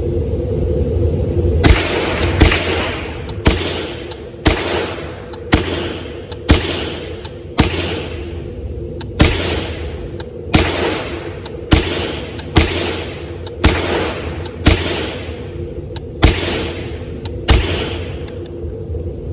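AR-15 rifle converted to .22 LR with a CMMG Bravo conversion kit, fired semi-automatically: about fifteen sharp single shots, roughly one a second, starting a couple of seconds in and running through a whole magazine, each with a short echoing tail.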